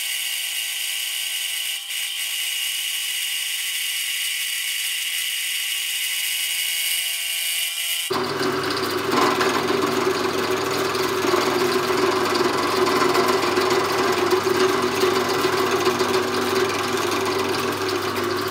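Pillar drill running with a cutter side-milling a metal part as the table is swung by hand around the pillar. A steady high whine gives way abruptly, about eight seconds in, to a louder, rougher cutting noise over a low hum.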